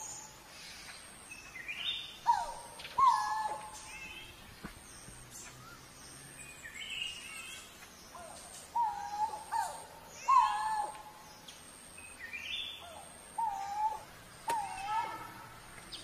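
Coral-billed ground cuckoo calling: loud whistled calls that drop in pitch and then hold, mostly in pairs every few seconds. Fainter, higher chirps from other birds run underneath.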